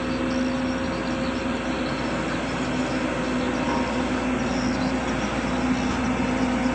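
Engine of heavy road-work machinery running steadily, with a constant low hum.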